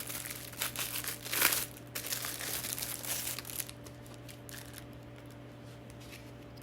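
Packaging crinkling and rustling as a small item is unwrapped and handled. It is loudest about a second and a half in and dies down to a few faint rustles after three and a half seconds.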